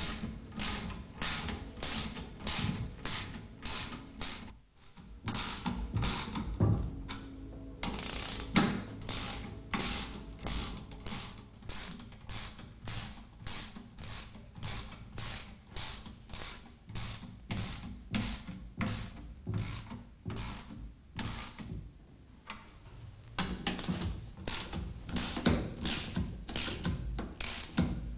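Socket ratchet wrench tightening the spring-compression nuts on a Walterscheid friction clutch, clicking in a steady rhythm of about two to three strokes a second. The nuts are drawn down to compress the clutch's spring packs so the adjusting ring can be removed.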